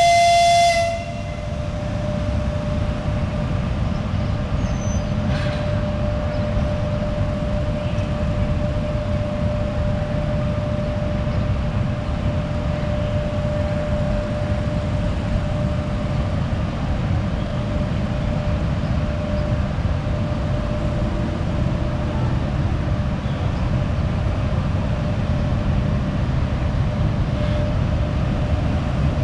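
EP1M electric locomotive hauling a passenger train out of the station. A horn blast ends about a second in, then a steady low rumble with a steady tone, growing slightly louder as the locomotive draws nearer.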